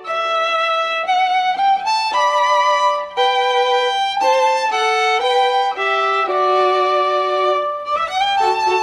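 Background music led by a violin playing a melody of held notes.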